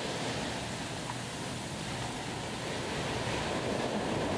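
Small waves washing up onto a sandy beach: a steady rush of surf.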